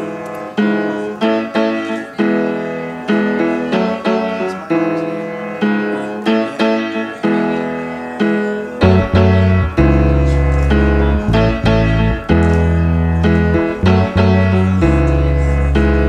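Background music: piano playing a steady run of notes, about two a second, with a deep bass coming in about nine seconds in.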